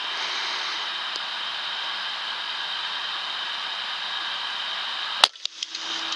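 A single sharp air rifle shot about five seconds in, followed by a few fainter clicks, over a steady hiss.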